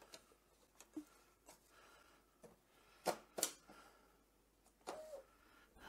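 Handling a roll of paper labels inside a Bixolon XD3-40 thermal label printer: faint rustles and light ticks, then two sharp plastic clicks about three seconds in as the printer's lid is shut.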